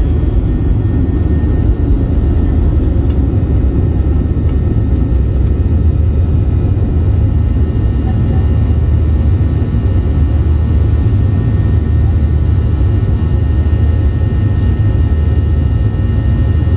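Boeing 737's turbofan engines at takeoff thrust, heard inside the cabin over the wing: a steady deep rumble with faint high whining tones, through the end of the takeoff roll, liftoff and initial climb.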